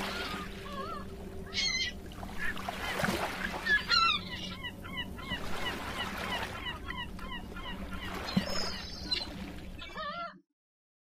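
Birds calling repeatedly in short wavering calls over a steady low hum, cut off abruptly into silence near the end.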